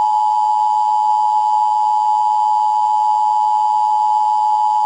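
Emergency broadcast attention tone: one loud, steady electronic tone held without a break.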